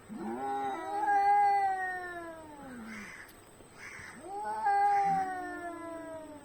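Domestic cats caterwauling in a fight standoff: two long, drawn-out yowls, each swelling up and then sliding slowly down in pitch, with two short hisses in the gap between them.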